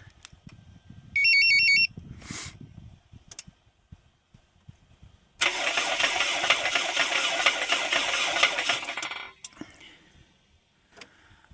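A short electronic chirp from the car's alarm/remote-start unit, then the Toyota 7A-FE engine turning over on the starter for about four seconds and stopping abruptly without running on. The engine is being cranked to hunt down a knock in the cylinder head.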